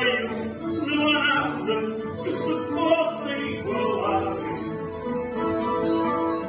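A song sung in Portuguese with long held notes over acoustic guitar accompaniment.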